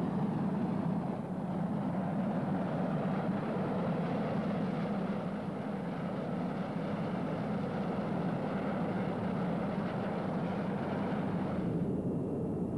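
Passenger helicopter's engines and rotor running steadily on the ground, a continuous rumbling rush.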